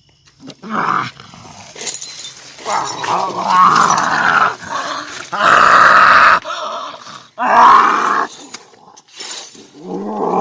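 A person in a possession trance, acting as medium, growling and roaring in a series of loud, strained bursts.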